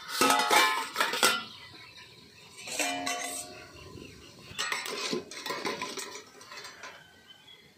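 Stainless-steel cookware clanking and ringing as the lid comes off a steamer pot and a metal cake tin is scraped and lifted out with a long steel spoon. The clatter comes in three bursts: in the first second and a half, around three seconds, and around five seconds.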